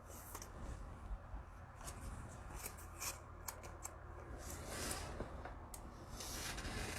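Football trading card packs being handled: wrappers crinkling and cards sliding against each other in several short scratchy spells, with a few light clicks.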